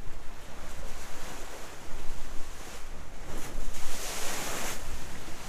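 Open-sea waves washing past a sailing catamaran's hulls, with wind buffeting the microphone. A louder hissing surge of water and wind comes about four seconds in.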